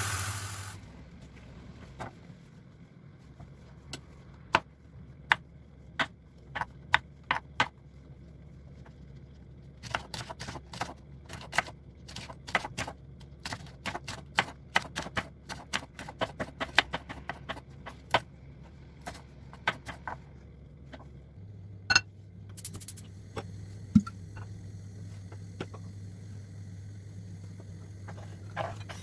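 A string of irregular sharp clicks and taps, sparse at first and then coming quickly for about ten seconds in the middle, over a low steady hum.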